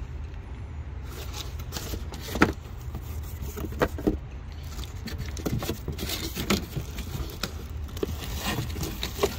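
A cardboard speaker box being opened and plastic-wrapped speakers handled inside it: irregular scraping, rustling and light knocks of cardboard and plastic, with a sharper knock about two and a half seconds in. A steady low rumble runs underneath.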